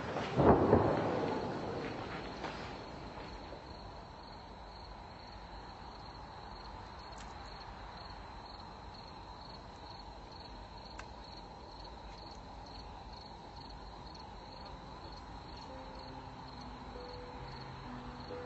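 Crickets chirping steadily in an even, rapid pulse. About half a second in, a loud thump sounds and dies away over a couple of seconds.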